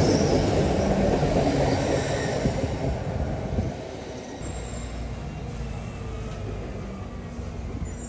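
A vehicle passing: a loud rushing noise for the first three and a half seconds, which drops away suddenly and leaves a steady low hum with a few faint drawn-out tones.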